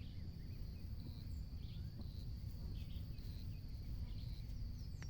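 Quiet outdoor ambience: a few short, scattered bird chirps over a steady high-pitched hum and a low rumble of wind or distant noise.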